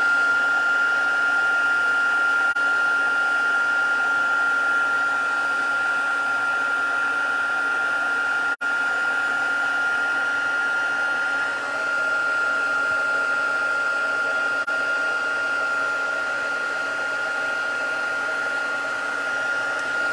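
Embossing heat tool running steadily: an even blowing hiss with a high, steady whine, melting black embossing powder on a stamped image. The sound cuts out for an instant about eight and a half seconds in.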